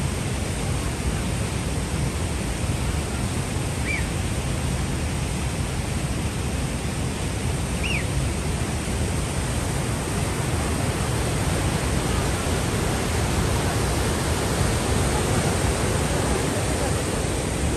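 Steady rushing of a fast mountain river, with two brief high chirps about four and eight seconds in.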